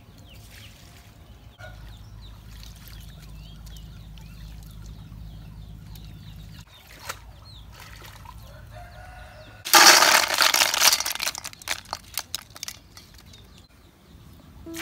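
Water poured over a woven basket of greens, rushing and splashing into a metal bowl below for about three seconds, then breaking up into drips. Before it, a low steady hum and faint bird calls.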